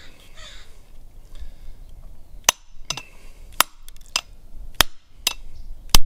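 Claw hammer striking a hammer-driven crimping tool, about seven sharp metallic blows roughly two a second starting about two and a half seconds in, the last the loudest: crimping a lug onto 6-gauge battery cable.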